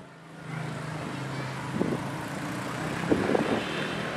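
A motor vehicle engine running steadily close by, a low even hum, with brief voices twice.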